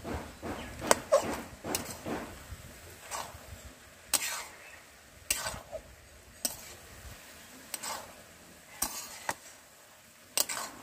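A metal spatula (khunti) scraping and knocking against the cooking pan in irregular strokes, about one a second, as fried fish heads are broken up and stirred into the greens.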